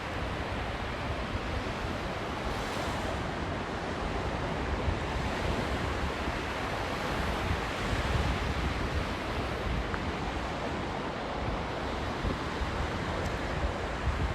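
Big sea waves breaking on a beach, a continuous wash of surf with no single break standing out. Wind buffets the microphone, adding a fluttering low rumble.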